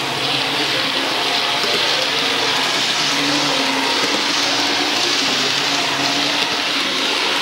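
Steady whirring hiss of H0-scale model trains running on a large layout, including the class 601 TEE model, with no distinct knocks or changes.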